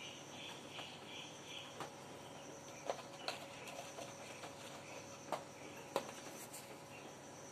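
Faint insect chirping in short pulsed trains over a thin steady hum, with a few sharp clicks about three, five and six seconds in.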